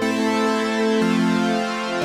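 Roland Alpha Juno-1 analog synthesizer playing sustained chords through a Source Audio Nemesis delay pedal, with the lower note stepping down about a second in.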